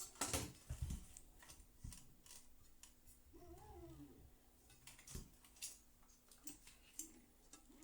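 Faint scattered clicks and knocks, with one short pitched call a little past the middle that rises and then falls.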